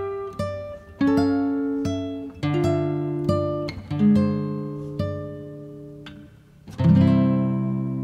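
Background music on acoustic guitar: single plucked notes one after another, each fading, then a fuller strummed chord about seven seconds in that rings on.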